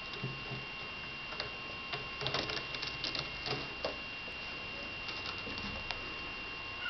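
A kitten's claws catching and scratching on the sisal-rope posts and plush platforms of a cat tree as it climbs and scrambles: a scatter of irregular light clicks and scuffs, thickest about two to four seconds in, with a few soft bumps near the start.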